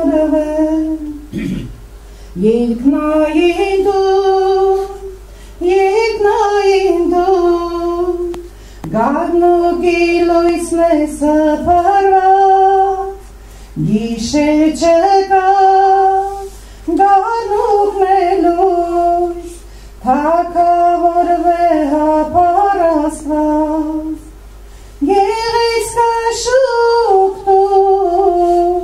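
A woman singing solo into a handheld microphone, phrase after phrase of long held notes, each phrase a few seconds long with a short breath between, and no accompaniment heard.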